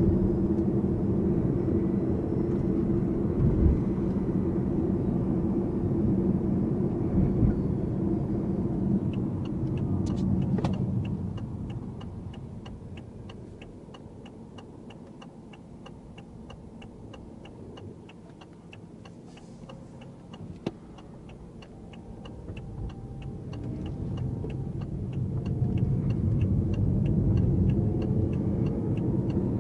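Inside a BMW i8's cabin, its 1.5-litre three-cylinder petrol engine runs loudly under way, then fades to a quiet hum as the car slows for a turn, with the turn-signal indicator ticking steadily. The engine noise rises again as the car pulls away in the last few seconds.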